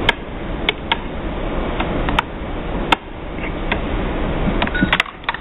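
Penny press mechanism turning through its cycle with a penny loaded: a steady mechanical running noise with sharp clicks and ticks at irregular intervals as the cam and the new drop mechanism work.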